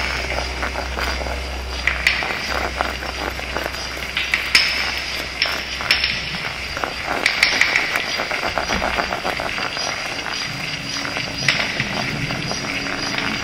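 Abstract electroacoustic soundtrack: a dense crackle of short clicks and hiss, with sharper cracks every second or two, over a low hum that drops away about two seconds in and faint steady tones.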